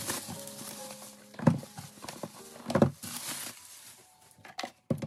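Bubble wrap rustling as it is pulled away, then two cardboard product boxes set down on a table with a thud each, about a second and a half in and just under three seconds in, followed by a few lighter knocks as things are handled.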